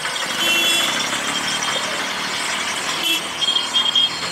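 Samosas deep-frying in a kadhai of hot oil, a steady dense sizzle.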